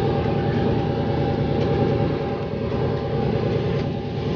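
Steady low engine rumble with a faint steady hum running through it.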